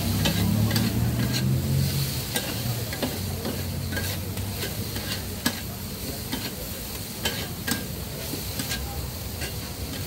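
Two metal spatulas scraping and clacking on a flat steel griddle as noodles sizzle, with irregular sharp clinks about twice a second over a steady hiss. A low hum fades out over the first two seconds.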